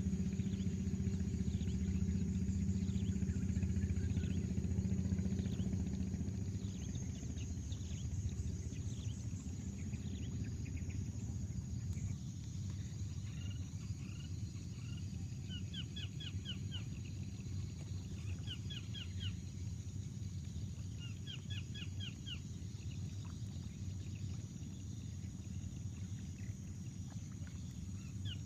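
Rural pond-side ambience. A steady low engine hum is strongest for the first six seconds or so, then eases. Under it runs a constant high insect drone, and birds call in short, rapid chattering runs several times in the second half.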